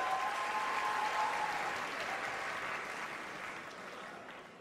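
Studio audience applauding, the applause dying away over the last second or so.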